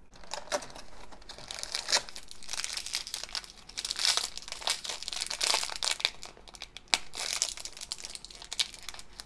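Shiny foil blind bag crinkling as it is handled and torn open by hand: an irregular run of crackles and rips with several sharper snaps.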